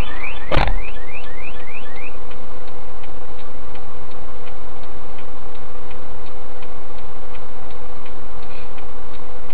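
A repeating rising electronic chirp, about three a second, that stops about two seconds in. A single sharp bang comes just over half a second in. After that, faint even ticking about twice a second continues over a steady loud hum and hiss.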